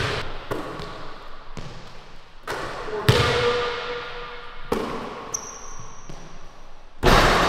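Basketball bouncing on a hardwood gym floor, single bounces about a second apart, each followed by the echo of a large hall. The loudest strikes come about three seconds in and near the end.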